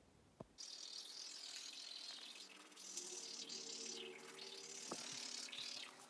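Manual toothbrush scrubbing on teeth: a faint, hissy brushing rasp that starts about half a second in, just after a single click.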